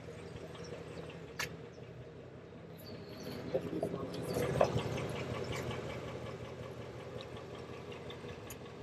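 A car engine idling steadily, swelling in level for a few seconds around the middle, with a single short click early on.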